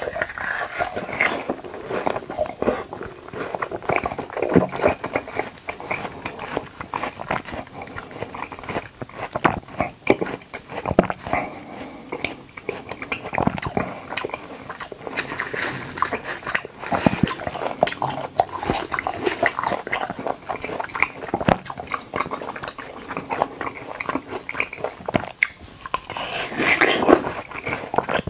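A person biting and chewing watermelon and konjac jelly close to the microphone: a steady run of irregular mouth clicks and smacks, with denser, louder bites near the start and again near the end.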